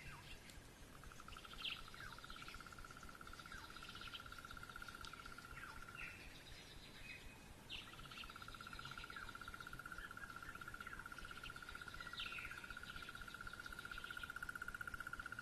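Wild birds chirping and giving short downward calls over a long, fast, even trill held at one steady pitch. The trill runs for about five seconds, stops briefly, then starts again and carries on for about eight seconds.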